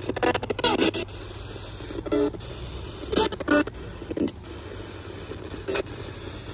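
Portable AM/FM/shortwave radio used as a spirit box: a steady hiss of static from its speaker, broken several times by short, chopped fragments of broadcast voices as it sweeps across stations.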